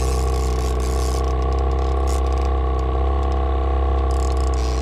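A fishing reel being cranked under the load of a hooked king salmon, its gears and clicker making a fine, uneven ratcheting. Beneath it, the boat's motor drones steadily at trolling speed.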